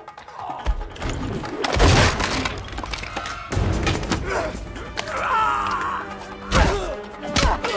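Film fight-scene sound effects over background music: a run of heavy thuds, blows and crashes, the loudest about two seconds in and near six and a half seconds, with a short cry about five seconds in.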